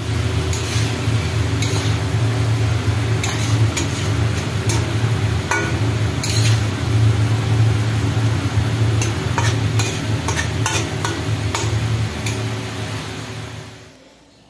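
Chicken kasha frying in a non-stick kadai: a steady sizzle under a low hum, with the spatula scraping and knocking against the pan at irregular moments as the pieces are turned. The sound fades out near the end.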